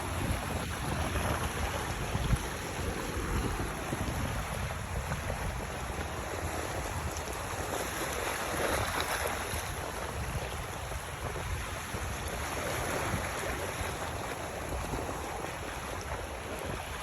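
Wind buffeting the microphone in uneven gusts over a steady wash of waves.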